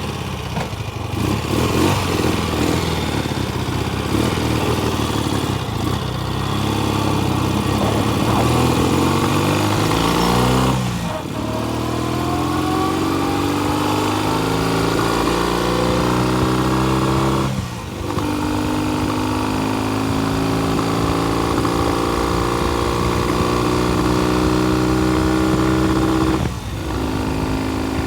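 Classic motorcycle engine pulling under load on a ride, its pitch rising steadily through each gear and dropping at three short breaks about eleven, eighteen and twenty-six seconds in. The rider suspects a magneto fault that costs the spark at higher revs.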